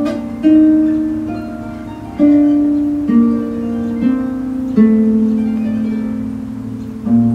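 Pedal harp music: a slow melody of plucked notes, a new note about every second, each ringing on and fading.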